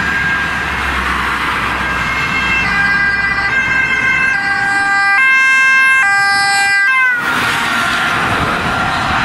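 Ambulance two-tone siren, its two notes alternating about every three-quarters of a second and growing louder as the Mercedes ambulance approaches at speed. About seven seconds in, as it passes, the siren's pitch drops and the rush of the vehicle going by takes over while the siren fades.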